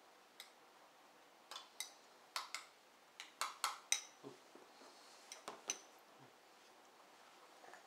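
Porcelain dishes and a metal spoon clinking against each other and the plastic high-chair tray as a bowl is set down and a plate lifted away: a quick, irregular run of a dozen or so sharp clinks, some ringing briefly.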